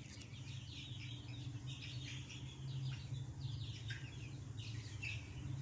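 A group of young chicks peeping: many short, downward-sliding cheeps, overlapping and scattered throughout. A steady low hum runs underneath.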